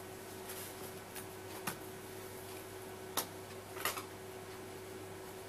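Steady low electrical hum in a quiet room, with soft rubbing from a cloth wiping a whiteboard and a few sharp clicks as a marker is handled, the last a double click about four seconds in.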